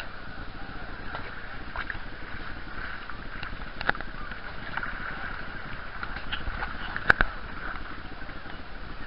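Shallow sea water sloshing and lapping around a camera held at the surface, with two sharp knocks, the louder one about seven seconds in.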